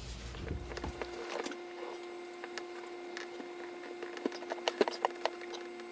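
Scattered small clicks and knocks of plumbing parts and tools being handled, with a few sharper knocks near the end, over a steady low hum that sets in about a second in.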